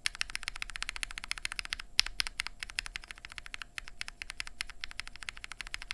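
Fast, steady typing on a mechanical keyboard with Gateron Milky-top Yellow linear switches, aluminium plate and GMK keycaps: a dense run of about ten keystroke clacks a second, pausing briefly about two seconds in.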